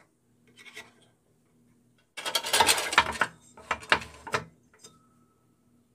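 Clattering and scraping as the plastic-housed Craftsman 10-inch three-wheel bandsaw is handled and moved on the bench, in two bursts of about a second each, followed by a single click.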